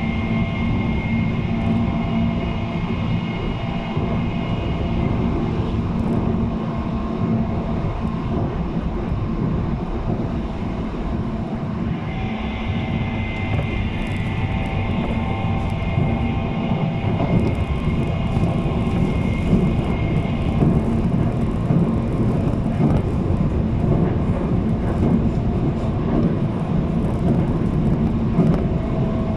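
JR East 719 series electric train running at speed, heard from inside the car: a steady rumble of wheels on rail with high-pitched steady tones that fade out after a few seconds, return about twelve seconds in and stop about twenty seconds in. This particular car is known for an unusual running noise.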